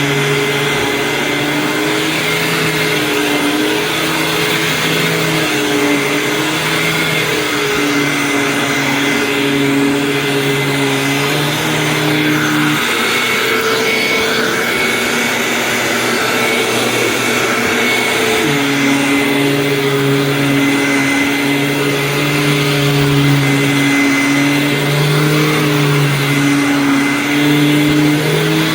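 2002 Hoover WindTunnel Supreme upright vacuum cleaner running: a steady motor whine over a lower hum that shifts in pitch every second or two and drops out for several seconds around the middle.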